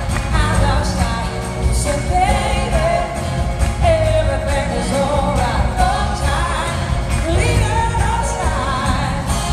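A live band playing soul-rock: a woman sings the lead over electric guitar and a driving drum kit.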